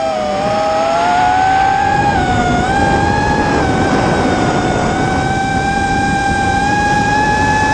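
FPV quadcopter's electric motors and propellers whining in flight, the pitch wavering a little and then rising gradually near the end.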